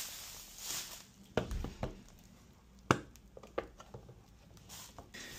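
Bubble wrap crinkling as a hard plastic lens-adapter case is pulled from it, then several sharp clicks and knocks as the case is handled and its lid opened.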